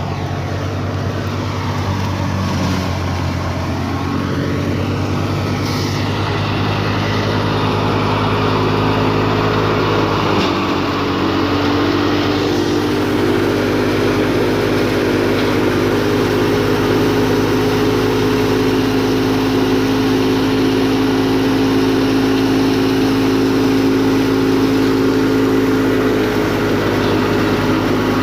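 Tractor-driven wheat thresher running steadily, with a constant engine drone and a dense clattering hiss from the threshing drum. Its pitch drops slightly about ten seconds in and shifts again near the end.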